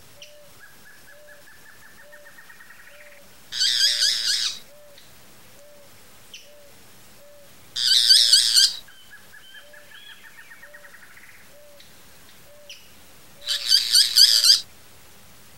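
Boat-billed flycatcher giving three harsh, rattling calls, each about a second long and several seconds apart. Behind them, another bird gives a faint, steady series of low hoots, about two a second.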